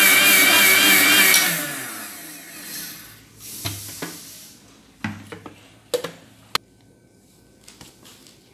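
Panasonic mixer grinder with a steel jar running at full speed while grinding roasted spices to powder. About a second and a half in it is switched off and the motor winds down, the pitch falling away. A few sharp clicks and knocks follow as the jar is handled and lifted off the base.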